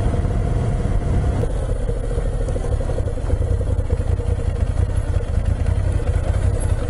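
Moto Guzzi V7 Special motorcycle's air-cooled V-twin engine running steadily while riding along a city street, with a strong, even low rumble.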